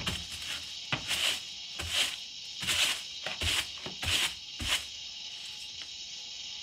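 Straw broom sweeping a wooden floor into a dustpan: about six short, brisk swishes, with a knock or two of the dustpan on the boards near the start. The sweeping stops about five seconds in.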